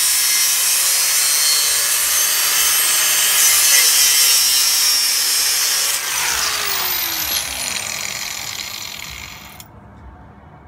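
Power cutting tool cutting metal intercooler piping, a loud steady hissing whine. About six seconds in it is let go and winds down in falling pitch, stopping shortly before the end.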